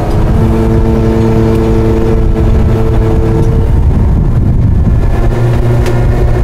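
Rollback tow truck's engine and bed hydraulics running as the bed is tilted, a low rumble with a steady whine over it that drops away about four seconds in. The PTO is not kicking the engine speed up as it should.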